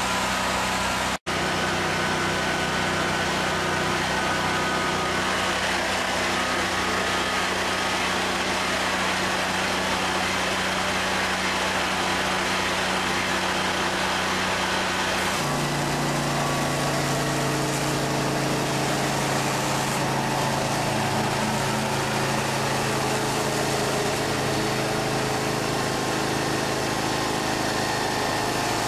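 Engine of a high-pressure drain jetter running steadily, with a hiss of water jetting through the pipe. Its tone changes suddenly about halfway through.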